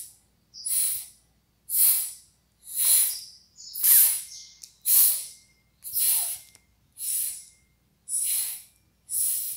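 A young girl's short, sharp hissing exhalations, about one a second, repeated steadily: a breathing drill from a vocal warm-up.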